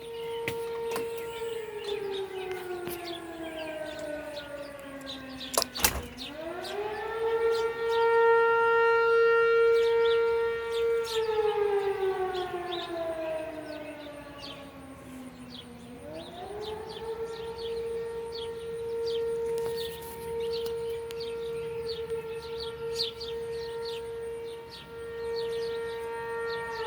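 Fire siren sounding its test: one steady wailing tone that glides slowly down, sweeps back up and holds, then falls and rises again. A brief sharp click comes about six seconds in, at the bottom of the first fall.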